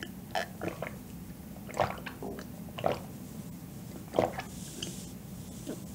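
A person drinking milk from a glass in big mouthfuls: about six gulps and swallows, coming at irregular intervals of a second or so.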